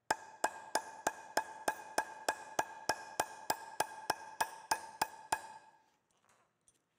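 Hammer tapping a steel expansion anchor bolt, with a nut and washer on it, down into a drilled hole in concrete. There are about eighteen even taps, roughly three a second, each with a metallic ring, and they stop about five seconds in. The tapping drives the anchor until it is fully seated.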